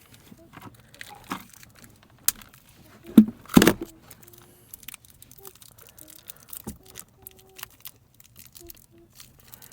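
A small product package being worked open by hand: scattered clicks, rustling and tearing of the packaging, with two louder knocks a little after three seconds.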